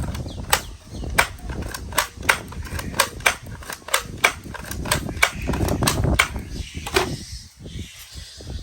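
Toy gun firing a long series of sharp shots, about two to three a second and slightly uneven, stopping about seven seconds in, with a low rumble underneath.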